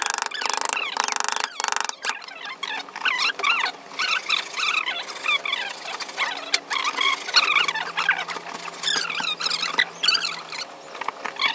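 Carving chisel pushed by hand through wood, giving scattered crackling cuts and many short, high squeaks. A rapid buzzing rattle fills the first two seconds.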